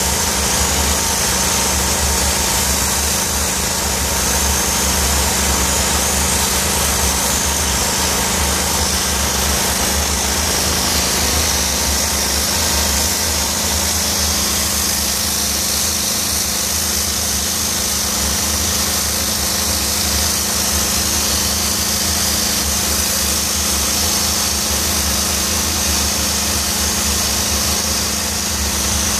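DOFF steam-cleaning lance hissing steadily as a jet of superheated steam plays over a stone window sill, over the constant low hum of the cleaning machine's engine.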